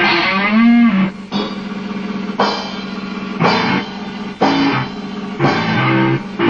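Amateur rock jam with electric guitar and drums. The guitar holds a wavering, bending note in the first second, then the band hits chords about once a second.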